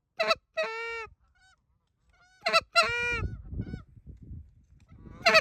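Geese honking: a string of short honks with two longer, drawn-out honks, and a low rumble underneath in the second half.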